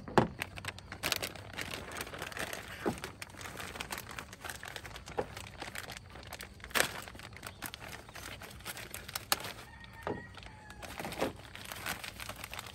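Clear plastic parts bags crinkling and rustling as they are handled, with several sharp clicks among them.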